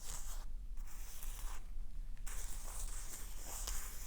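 Soft crackling and rustling close to the microphone, in short stretches with brief pauses, as something dry is handled.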